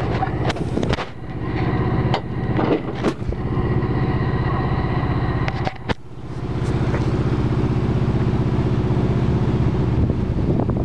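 Kenworth T660's Cat C15 diesel engine idling steadily, with several sharp knocks in the first few seconds, the loudest about six seconds in.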